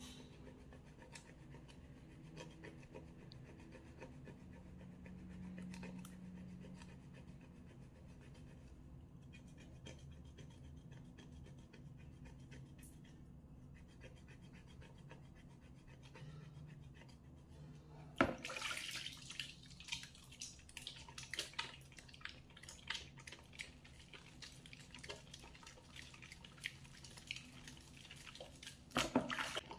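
Wet soap being lathered. At first there are only faint, scattered ticks. A little over halfway in, a denser crackling of many small clicks and rustles begins and goes on until near the end.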